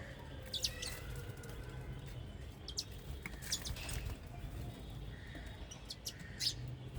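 Small birds chirping, with a few short, sharp calls scattered through, over a steady low background rumble. A distant siren fades out near the start.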